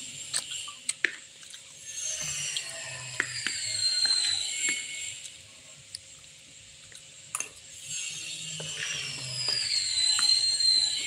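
A metal spoon scraping and clicking against a plate as rice is scooped up, with many sharp little clicks. High whistle-like tones slide downward in the background, loudest about four seconds in and near the end.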